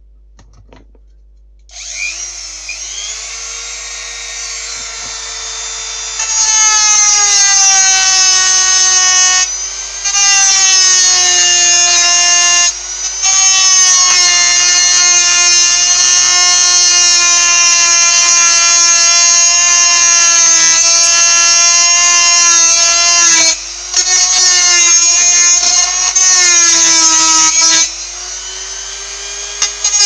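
Handheld rotary tool with a metal cutting disc: its motor starts about two seconds in with a steady high whine, then the disc grinds through a steel anchor bolt in long, loud stretches broken by a few brief pauses. Near the end it runs more quietly, off the cut.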